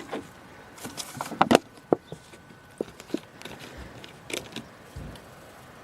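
Irregular clicks, taps and light knocks, about a dozen, bunched around the first second and a half and scattered after: handling noise as a water bottle and the small metal find are picked up and worked in the hands.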